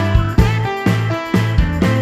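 Background music with a steady beat of pitched notes.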